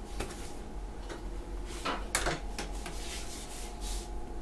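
Kitchen handling noises: a jug and utensils knocked and scraped, a cluster of sharp knocks about two seconds in, over a steady electrical hum.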